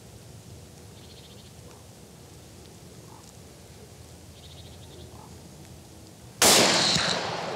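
A single rifle shot about six and a half seconds in, sudden and loud, its echo trailing off over the next second. Before it, only faint, quiet outdoor background.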